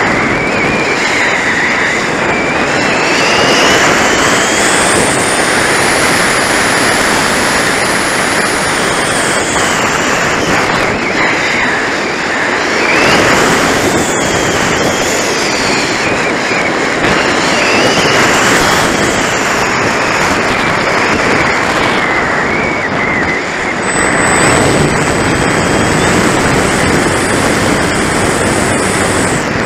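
Strong wind buffeting the microphone, a loud steady rush. Over it, a thin high whine rises and falls several times.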